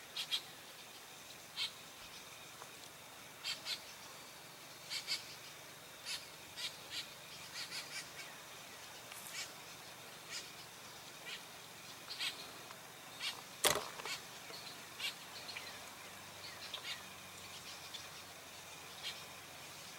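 Birds calling in short, high chirps, scattered irregularly over a quiet outdoor background. A single sharp knock a little past the middle is the loudest sound.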